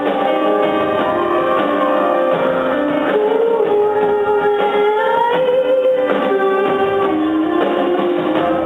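Live concert music: a band playing a song, with guitar sounding prominently over sustained notes that now and then slide slowly in pitch.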